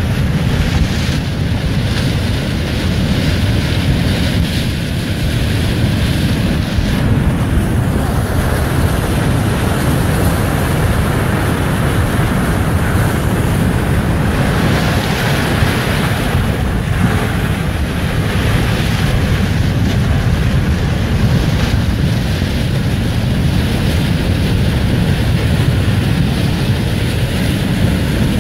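Flash-flood debris flow of grey mud and rocks rushing down a gully, a loud, steady low rumble with wind noise on the microphone.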